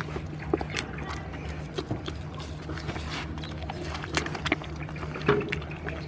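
Goats biting and chewing a piece of fruit held out in a hand: irregular wet crunches and clicks, over a steady low hum.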